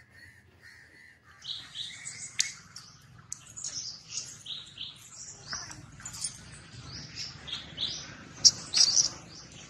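Shrill chirping calls in quick runs of short, high notes, starting about a second in and loudest near the end, over a low steady hum.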